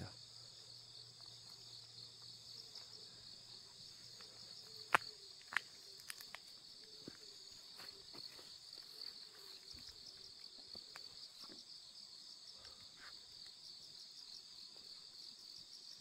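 A steady, high-pitched chorus of grass insects calling in the grass, with a fine rapid pulsing. Two sharp clicks stand out about five seconds in.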